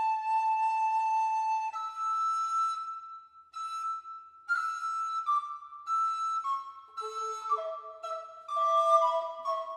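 Recorder trio (Küng Superio soprano and tenor, alto after Bressan) playing a slow melody. It opens on one long held note, moves into higher phrases with short breaks, and lower parts join in during the second half.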